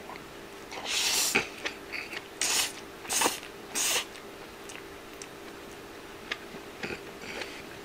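Spaghetti slurped into the mouth in about four short noisy sucks over the first four seconds, then chewing with a few faint clicks.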